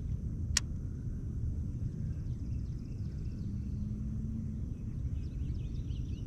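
Steady low rumbling background noise outdoors, with one sharp click about half a second in and faint bird chirps near the end.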